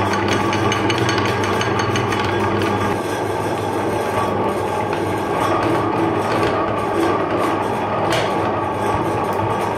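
Electric meat grinder running steadily, its auger crushing pieces of chocolate through the cutting plate, with crackling and scattered clicks over a constant motor hum.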